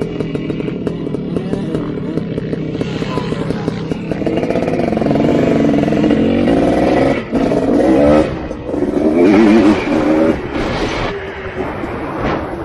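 Dirt bike engine running on a motocross track, its pitch rising and falling with the throttle.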